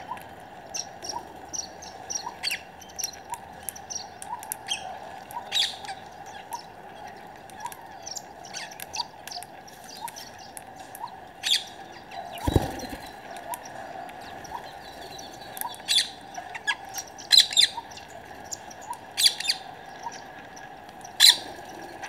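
Rose-ringed parakeets giving short, sharp calls at irregular intervals, with a faint ticking about twice a second underneath and one dull thump about halfway through.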